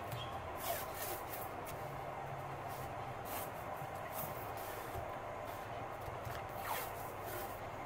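Masking tape being pulled off its roll and pressed along the edges of a sketchbook page: a series of short peeling and rustling sounds over a faint steady hum.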